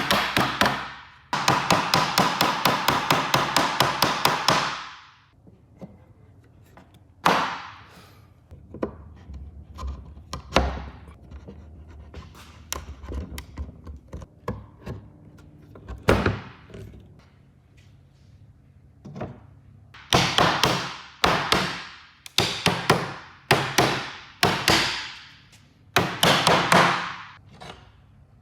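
Hammering on wood. A fast, even run of blows comes first, then a stretch of scattered single knocks, then quick bursts of several blows each near the end.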